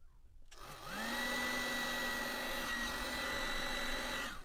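Electric hot-air heat gun switched on about half a second in: its fan spins up to a steady whine over a rush of air, then it is switched off just before the end. It is shrinking heat-shrink sleeving over the mains input lead's joint.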